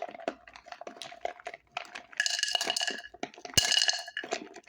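Mixed nuts poured from their container into a bowl, rattling and clinking against it in scattered clicks and two denser spells. A sharp knock comes about halfway through.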